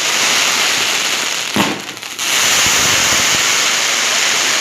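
Fireworks and firecrackers crackling densely, a rapid hail of overlapping pops, with one sharper bang about one and a half seconds in.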